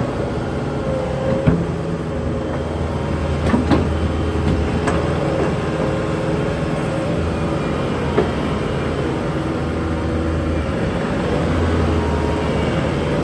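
Bobcat T-740 tracked skid steer's diesel engine running steadily while the machine works, with a few sharp knocks and clanks from the loader at intervals.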